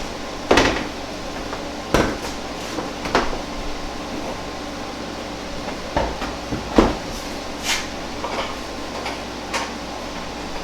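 A series of sharp metallic clanks and knocks, about seven of them spread irregularly, as a heavy pickup door is worked onto its hinges. A steady hum runs underneath.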